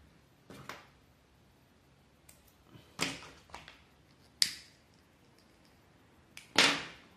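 A disposable lighter struck three times, about 3, 4.5 and 6.5 seconds in, each a sharp click that fades quickly, the last the loudest, while it is held to the string art's thread end to singe it.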